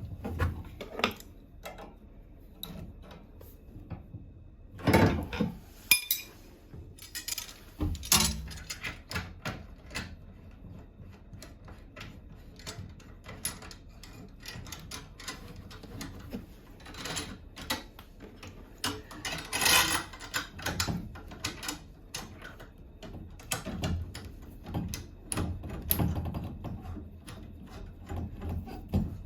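Irregular clicks, knocks and scrapes of hand work on bathroom faucet fittings, with a few louder knocks about five, eight and twenty seconds in.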